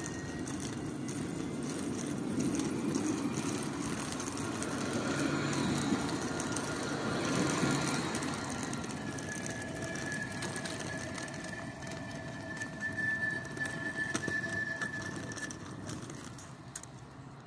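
Lyon TCL T4 tram, a long Alstom Citadis set, pulling out of the stop and running past with a steady rumble on the rails. From about halfway a steady high-pitched whine rides over the rumble for several seconds, then fades.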